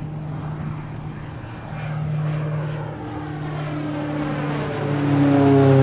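Sci-fi time-travel sound effect: a low, engine-like humming drone that swells steadily louder, its tones gliding slowly downward in pitch toward the end.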